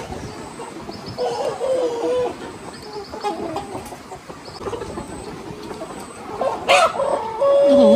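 A flock of chickens clucking, with short wavering calls coming every second or so.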